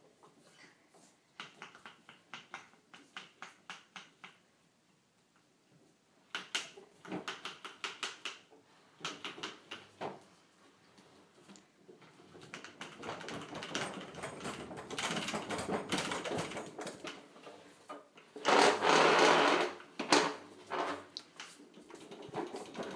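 Walker wagon's wheels rolling over a tile floor as it is pushed: separate clicks at first, then a denser rattle that is loudest for a couple of seconds near the end.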